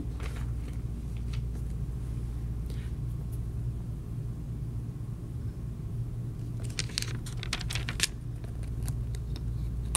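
Magazine pages being turned by hand: a short run of paper rustles and flicks between about seven and eight seconds in, over a steady low hum.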